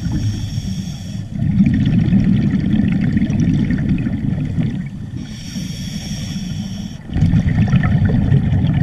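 Scuba diver breathing through a regulator underwater. A hissing inhale is followed by a long, louder burst of exhaled bubbles; a second inhale comes about five seconds in and more bubbles from about seven seconds.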